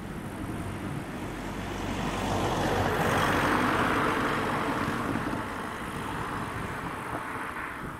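A car passes close by and drives away across the level crossing. Its tyre and engine noise swells to a peak about three to four seconds in, then eases off as it moves away.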